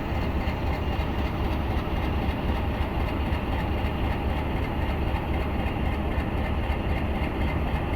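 Japanese-built HBU-20 diesel-electric locomotive idling at a standstill: a steady low engine hum and rumble.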